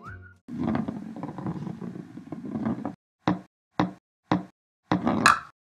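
A dense rumbling noise lasting about two and a half seconds, then four short knocks about half a second apart, and a last, slightly longer knock-like burst that rises in pitch.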